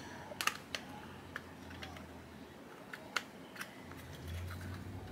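Small irregular clicks and taps of fingers handling a little acrylic-cased FM radio kit, with a faint low hum underneath.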